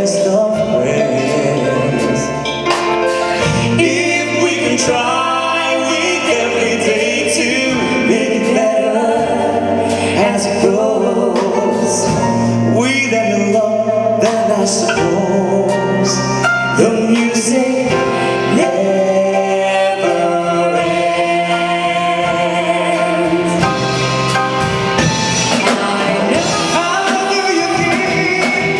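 Live band performing a medley of English duets: male and female singers over the band's accompaniment, singing continuously.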